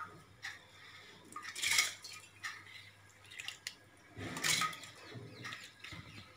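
Soaked raw rice and roasted moong dal tipped and scraped by hand from a plastic bowl into milk in a bronze pot: two short splashing rushes, one about two seconds in and one past four seconds, with a few light clicks between.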